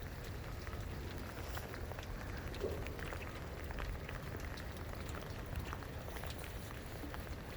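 Steady rainfall, with many small raindrop ticks close by.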